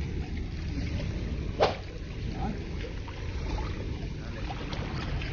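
Seawater lapping and splashing at the shore over a steady low rumble, with one short sharp splash about a second and a half in.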